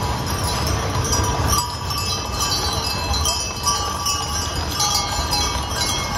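Metal harness fittings and chains on a team of draft horses jingling and clinking as the horses pull a decorated wagon past over cobblestones. A low rumble runs under it, along with the murmur of a crowd.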